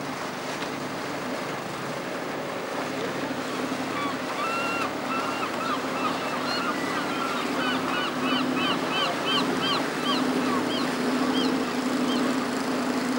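Wind and water noise with a steady low motor hum. From about four seconds in until near the end, a run of short, quick bird calls repeats a few times a second.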